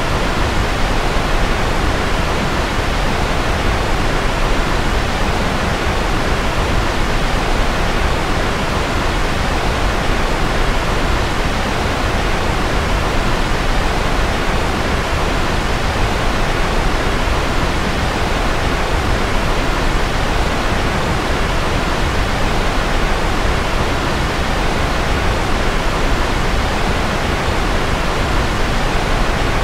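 Steady white noise: an even, unchanging hiss spread across low and high pitches alike.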